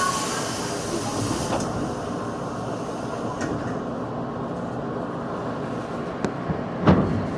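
Interior sound of a JR 211 series electric train: a steady running rumble with a short burst of air hiss in the first second and a half. Sharp knocks come near the end, the loudest about seven seconds in.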